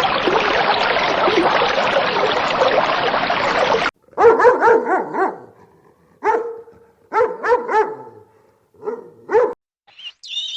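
A steady rushing noise cuts off abruptly about four seconds in. It is followed by a dog barking in short groups of two or three quick barks, four groups in all.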